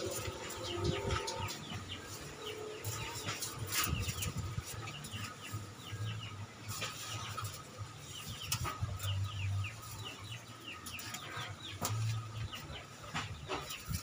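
Gusty wind buffeting in irregular low pulses, with small birds chirping many quick calls throughout.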